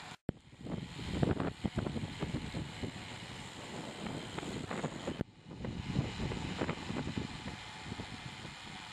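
Wind buffeting the microphone of a camera riding along at cycling speed, a gusty rumble with some road noise. It breaks off briefly just after the start and again about five seconds in, where the footage is cut.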